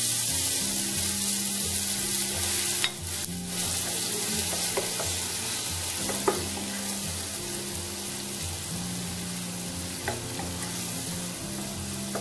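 Finely chopped onions sizzling in hot oil in a nonstick pot, stirred with a wooden spoon as they fry.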